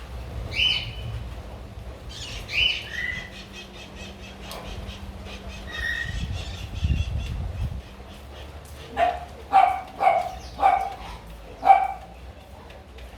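A few short, high bird chirps, then a dog barking five times near the end, over a faint steady patter of rain.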